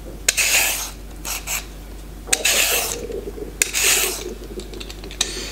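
Vegetable peeler scraping the skin off a raw parsnip, about four strokes of roughly half a second each.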